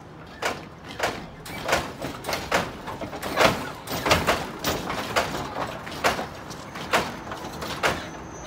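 Lowrider hydraulic suspension being worked from the switch: a quick, uneven run of sharp clacks and bangs, two to three a second, as the car hops and bounces.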